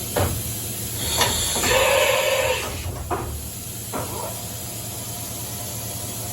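Automatic tool change on an OKK MDV55 50-taper vertical machining center: several sharp mechanical clunks from the tool changer, with a hiss of air lasting about a second near the middle, over the machine's steady hum.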